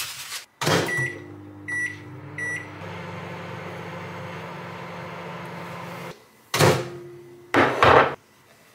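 Microwave oven: the door shuts with a thud, three short keypad beeps follow, then the oven runs with a steady hum. The hum cuts off about six seconds in, and loud door clunks follow near the end.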